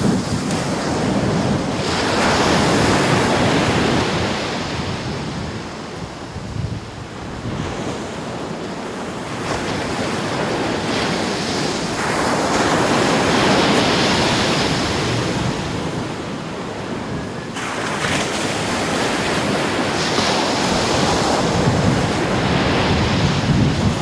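Ocean surf breaking on a sandy beach: a wide rushing wash that swells and fades in three long surges as the waves come in.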